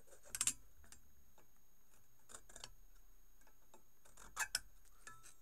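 Small sharp clicks of a hand-made brass scribe being handled and set against a steel anvil block to mark it out: a quick run of three clicks about half a second in, a few faint ticks in the middle, and two more near the end.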